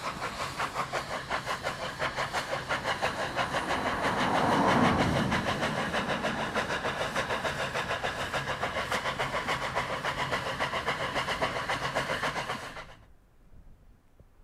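Garratt No. 87, an articulated narrow-gauge steam locomotive, working a passenger train: a rapid, even exhaust beat that grows loudest about five seconds in. The sound cuts off suddenly near the end.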